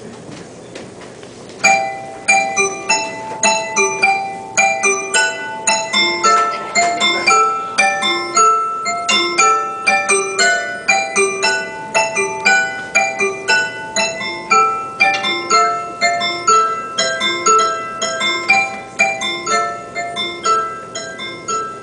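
Music begins about a second and a half in: a melody of bright, sharply struck single notes, each ringing briefly and fading, in a quick keyboard-like line.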